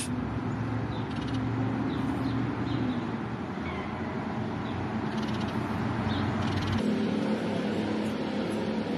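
A cat meowing over a steady low hum, with faint short high chirps; the background hum changes abruptly about two-thirds of the way through.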